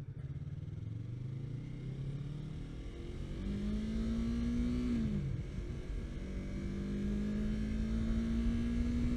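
Yamaha R3's parallel-twin engine accelerating on the road. Its pitch rises over the first few seconds, dips briefly about five seconds in, then climbs slowly again.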